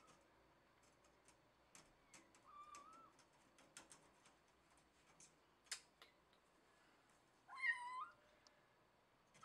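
A cat meowing quietly: a faint short meow a few seconds in, then a louder, rising meow near the end. Faint scattered clicks and taps run between the meows.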